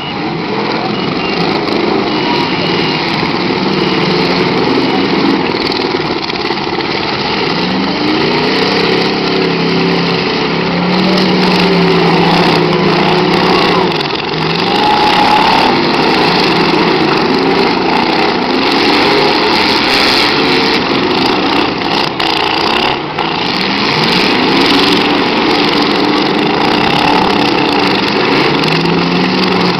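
Many demolition derby cars' engines running loud and rough together, revving up and falling back again and again as the cars accelerate and ram one another, with a couple of brief knocks about three-quarters of the way through.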